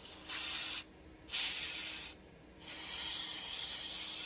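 Aerosol cleaner sprayed through a thin straw nozzle in three hissing bursts, the last the longest. It is blasting out the carburettor cavity on the air box of a McCulloch Pro Mac 700 chainsaw.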